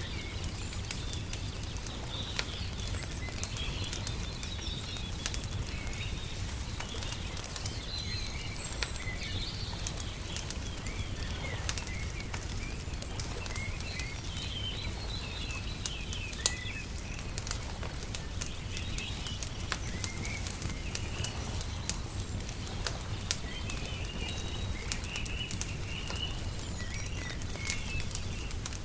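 Wood fire crackling with scattered sharp pops over a steady low rumble, while small birds chirp and twitter throughout.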